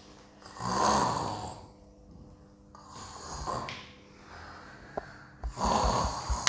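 A young boy roaring like a lion: four rough, breathy growling roars, the first the loudest and the later ones weaker.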